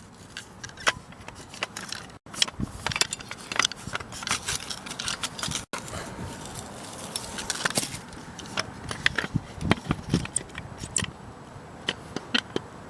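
Small metal parts of an old watt-hour meter and hand tools clicking, clinking and scraping as the meter is taken apart, with many short sharp clicks throughout.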